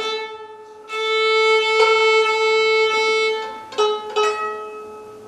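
Violin bowed on a long sustained note, re-bowed once partway through, followed by a shorter, slightly lower note with a couple of sharp attacks; a demonstration of proper bow hold.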